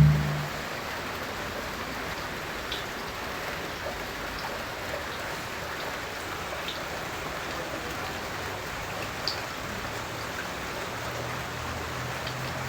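Steady rain falling, an even patter with a few louder single drops scattered through it.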